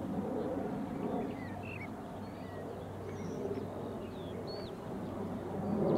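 Open-air ambience with birds chirping and calling in short, scattered high notes over a steady low hum and background noise.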